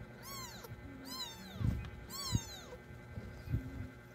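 Young kittens mewing: three short, high-pitched, arching mews about a second apart, with two soft thumps in between.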